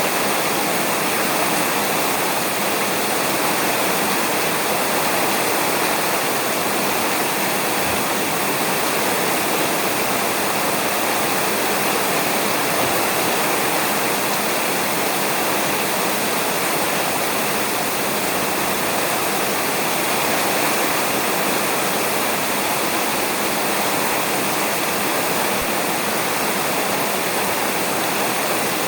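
Steady rain falling on a roof, an even, unbroken hiss with no thunder.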